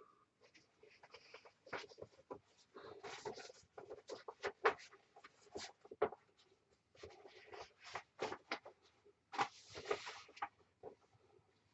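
Faint, irregular rustling and clicking of paper being handled and sorted through.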